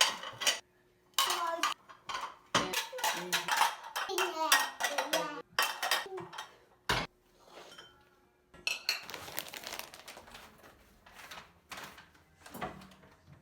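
Dishes and cutlery clattering and clinking as they are handled, a quick run of sharp knocks with short ringing tails that thins out near the end.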